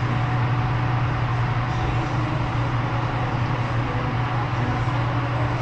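Steady low hum with an even hiss of room noise inside a café. There are no distinct events.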